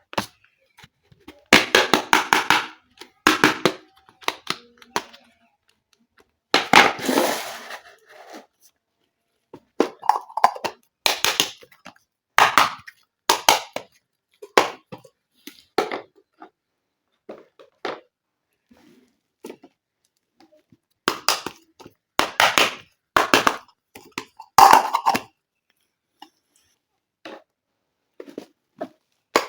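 Plastic toy pieces and packaging being handled during an unboxing: a run of sharp clicks and taps, with bursts of crinkling, the longest about seven seconds in.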